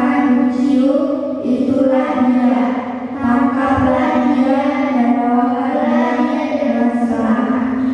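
A group of children reading a Bible passage aloud in unison, in a steady sing-song chant on a near-level pitch, with a brief pause about three seconds in.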